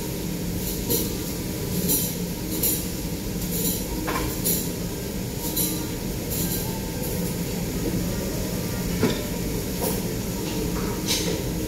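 Metal spatulas scraping and tapping on a teppanyaki griddle, in short irregular strokes over a steady low hum.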